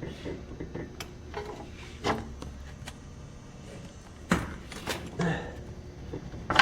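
Metal clicks and knocks from a wrench working an overtightened oil drain plug under a car, a few separate strikes over several seconds while the plug is strained to break loose.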